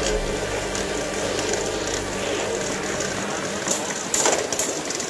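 Two Beyblade Burst tops spinning in a plastic stadium, a steady rattling whir as they grind and skitter over the floor. There is a sharp clack about four seconds in as they strike each other.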